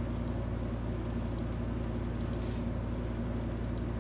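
Steady low electrical hum and hiss from the recording setup, with a few faint mouse clicks.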